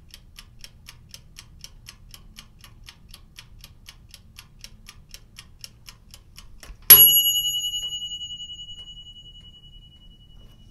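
Mechanical kitchen timer ticking at about four ticks a second, then its bell rings once, loud, about seven seconds in, and the ring fades slowly: the timer going off at the end of the baking time.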